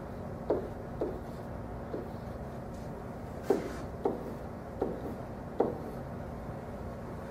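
Pen on a whiteboard as digits are written, about seven short taps and strokes at uneven intervals, over a faint steady room hum.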